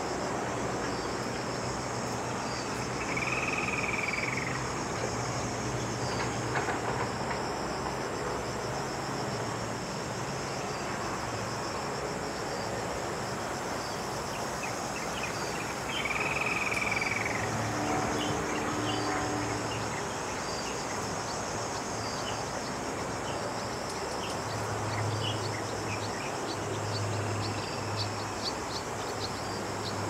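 Steady high-pitched chorus of cicadas buzzing without a break. Twice, a few seconds in and again about halfway, a short arching call rises and falls over it.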